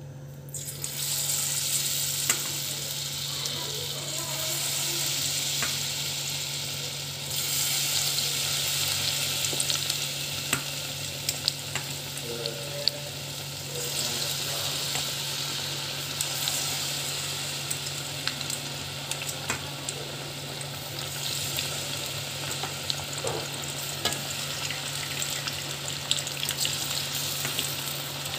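Battered banana fritters (pisang goreng) deep-frying in hot oil: a steady bubbling sizzle with many small crackles and pops. It starts about half a second in and grows louder around seven seconds in.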